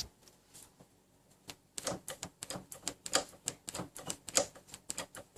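Irregular run of sharp clicks, several a second, starting about a second and a half in. This is typical of pumping a motorcycle's front brake lever to push the freshly refitted caliper's pads back against the disc and restore brake pressure.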